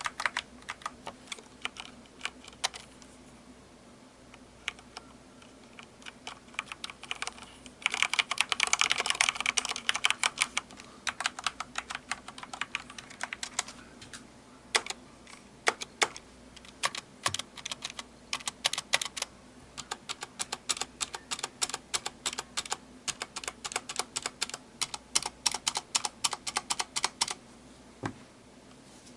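Typing on a Corsair K70 Rapidfire mechanical keyboard with Cherry MX Speed switches: runs of quick key strikes with short pauses, a dense fast flurry about eight seconds in, and the typing stopping shortly before the end.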